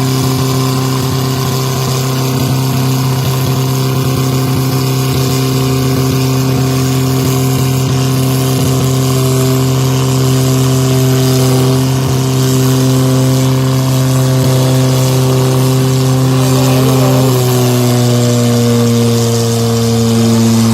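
Tractor diesel engine running hard at high, steady revs while pulling in a tochan tug-of-war, its pitch sagging slightly about seventeen seconds in as it takes more load.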